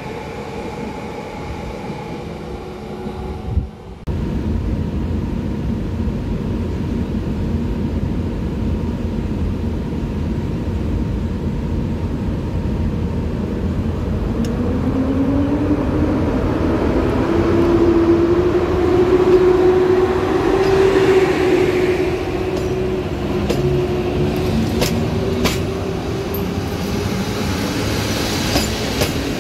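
A regional electric multiple unit runs in along the platform with a steady electric whine. Then an EP07 electric locomotive's train pulls away over a steady rumble, a whine rising in pitch as it gathers speed halfway through. Sharp clicks of wheels over rail joints come near the end as the coaches roll past.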